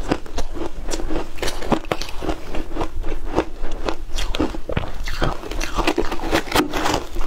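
Crushed ice being chewed, a fast, dense run of crisp crunches picked up close by a collar microphone. Near the end a metal spoon scrapes into the tub of ice.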